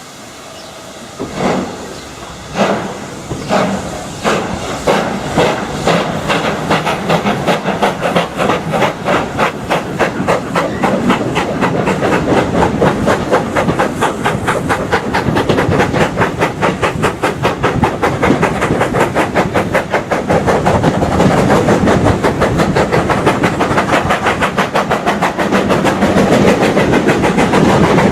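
Steam locomotive exhaust chuffing as a train pulls away. The beats start about a second apart and quicken steadily into a rapid, even beat as it gathers speed.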